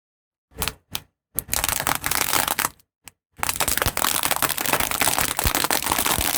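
Objects crackling and crunching as a car tyre crushes them: two short cracks, then a long stretch of dense crackling that stops briefly about three seconds in and starts again.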